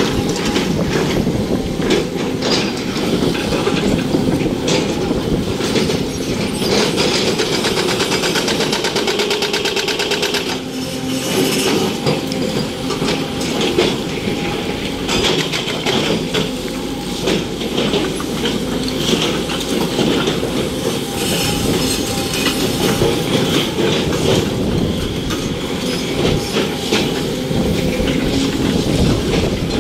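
SANY hydraulic excavator at work: its diesel engine running under load with continuous metallic clanking and rattling.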